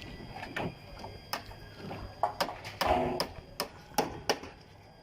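Irregular sharp taps and knocks of building work, about a dozen short strikes spread unevenly over a few seconds.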